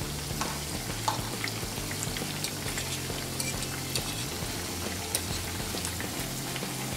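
Batter-coated bread pockets deep-frying in hot oil over a high gas flame: a steady sizzle with scattered pops and crackles as a fork moves them about in the pan.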